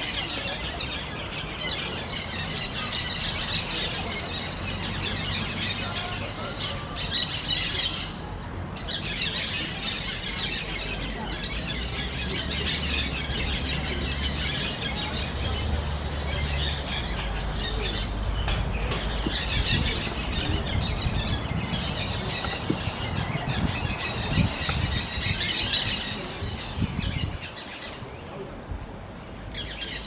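Parakeets chattering with shrill, squealing calls almost without a break, easing off briefly about eight seconds in and again near the end. A low rumble runs underneath through the middle part.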